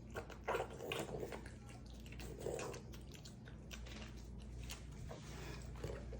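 A dog making short, scattered wet mouth and nose noises and scuffling as it resists being given a kennel cough vaccine, over a low steady hum.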